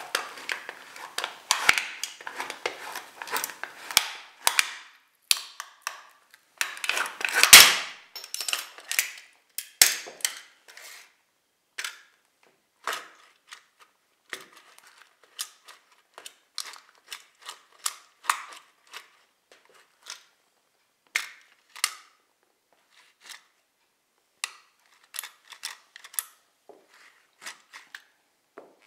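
High-heeled leather boot crushing a cardboard chocolate box with a toy Mercedes truck inside it on a tile floor: a dense run of cracks and crunches with the loudest snap about seven and a half seconds in, then thinning to scattered single clicks and taps.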